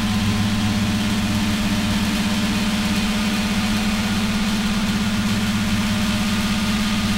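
A steady, low electronic drone with a fast, even flutter, over a continuous hiss. It is environmental and industrial sound modulated through a mixer oscillator and a Korg analog synth.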